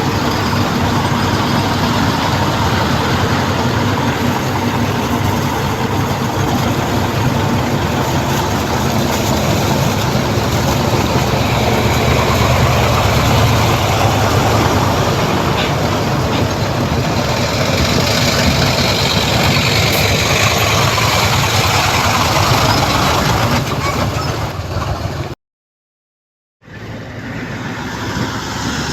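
Heavy diesel earthmoving machinery running steadily with a low rumble. The sound cuts out completely for about a second near the end, then resumes.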